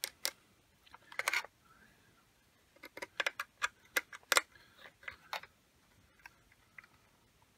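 Sharp clicks and taps from handling a small screwdriver and the hard plastic parts of a rear-view mirror mount. There is a quick cluster about a second in, then a run of clicks between about three and five and a half seconds.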